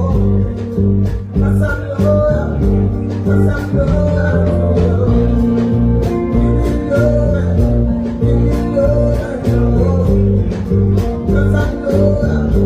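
Live band music with a heavy bass line, a steady drum beat and guitar.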